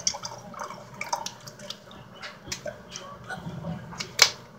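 Water poured from a plastic water bottle into a glass jar holding a thick mixture, trickling and splashing in irregular drips. There is one sharp click about four seconds in.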